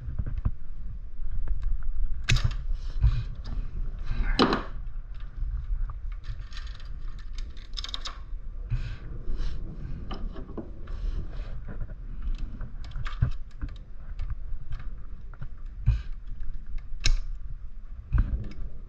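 Irregular metallic clicks, small rattles and knocks of a bicycle chain being worked by hand while its tight master link is pushed closed, with a few sharper knocks, the loudest about four seconds in and near the end.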